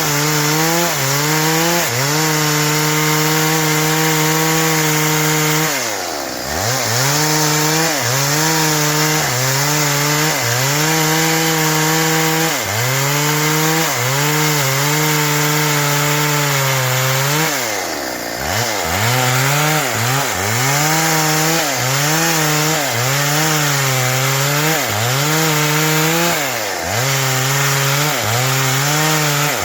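Stihl MS 382 two-stroke chainsaw running at high revs while cutting through wood, its pitch sagging under load every second or so and recovering. Three times, about 6, 18 and 27 seconds in, the revs fall sharply and then climb back.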